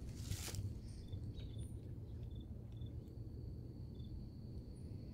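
Faint outdoor ambience: short high chirps repeat irregularly from a distant calling animal, at times about two a second, over a low rumble. A brief rustle comes near the start, and a thin steady high whine joins about halfway through.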